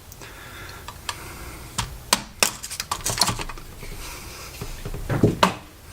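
Small mallet tapping a metal pin punch to drive out the pin holding a side blade in a Kylo Ren Force FX lightsaber hilt: scattered sharp metallic clicks, several in quick succession around the middle and a few more near the end.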